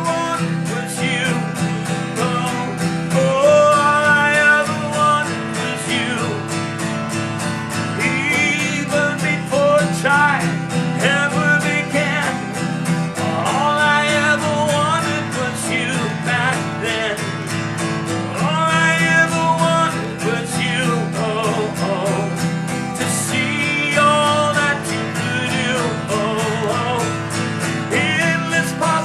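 Worship music led by steadily strummed and picked acoustic guitar, with sustained chords underneath and melodic lines over them; no singing.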